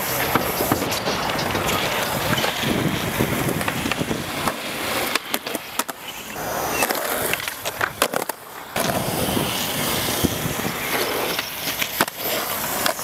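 Skateboard wheels rolling on a concrete skatepark surface, with several sharp clacks and knocks from the board popping and landing.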